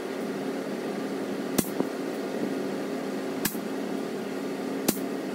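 Three sharp snaps, about one and a half to two seconds apart, of a .22 Karma Red Panda PCP air rifle firing 33-grain slugs into a paper target. A steady hum runs underneath.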